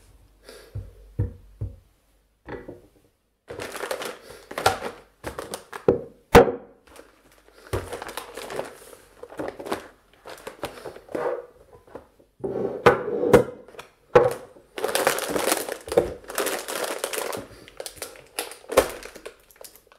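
Plastic food packets crinkling as they are handled and set down, with sharp knocks of packaged goods and a can being put on a tabletop. The loudest knock comes about six seconds in. Crinkling grows thicker for a couple of seconds past the middle.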